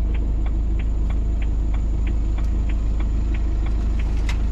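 Car engine idling with a steady low hum, and over it a light, regular ticking about three times a second. A sharper click comes near the end.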